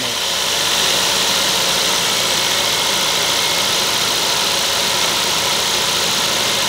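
Toyota Vios four-cylinder engine idling steadily with no misfire, running smoothly on a newly replaced set of ignition coils.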